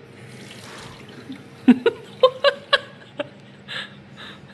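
A person laughing: a quick run of about six short laughs, then a few breathy exhaled laughs near the end.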